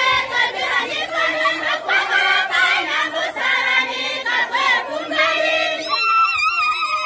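A crowd of many voices singing and shouting together in welcome. About six seconds in it thins to a few high voices holding wavering notes.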